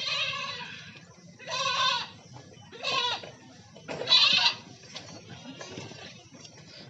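Goats bleating: four loud, quavering bleats in the first four and a half seconds, then quieter.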